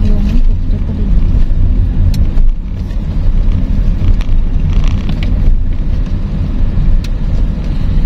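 A sedan driving on an unpaved dirt road, heard from inside the cabin: a steady low rumble of engine and tyres, with a couple of sharp knocks or rattles.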